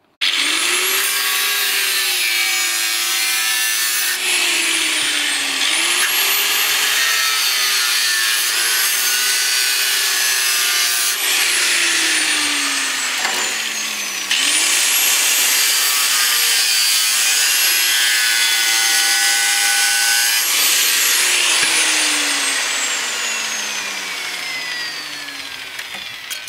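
Angle grinder with a cutting disc cutting a patch blank from sheet steel. The motor spins up at the start, its whine drops and climbs again twice as the disc bites and eases off, and it winds down over the last few seconds.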